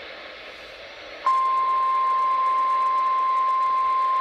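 Faint radio static, then about a second in a single steady high beep comes on abruptly and holds: the weather radio's warning alarm tone, which signals that a new warning message is about to follow.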